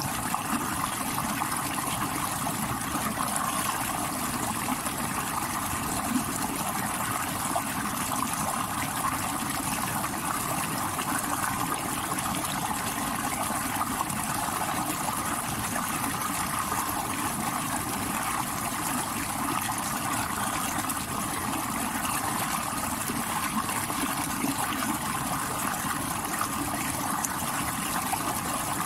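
Stream water rushing over rocks: a steady, unbroken rush.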